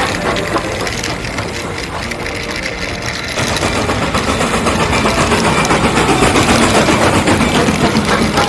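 Toy car running with a steady mechanical whir and fast rattle.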